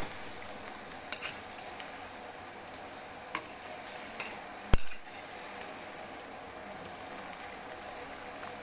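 Vegetable pakoras (bhajiye) deep-frying in hot oil in a kadhai, a steady sizzle. A slotted metal spoon knocks against the pan a few times in sharp clicks, loudest a little after halfway.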